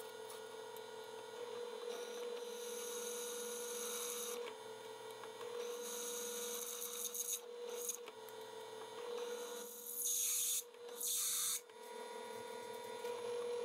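Bench drill press motor running with a steady hum while the bit scrapes against a knife tang in several hissing spells of a second or two. The blade steel has not been annealed, and the bit barely cuts into it.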